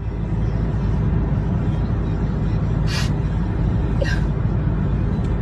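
Steady low rumble of road noise inside a moving car's cabin. Two brief crying sounds cut through, about three and four seconds in.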